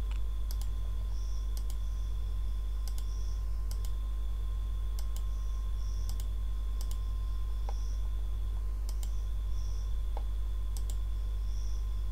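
Scattered clicks of a computer keyboard and mouse, mostly in quick pairs, spaced a second or so apart. A steady low electrical hum runs under them.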